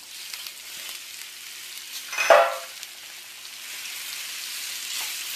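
Steamed amla segments sizzling in hot mustard oil in a frying pan as they are tipped in and stirred with a spatula, the sizzle slowly growing louder. A short metallic clank about two seconds in is the loudest sound.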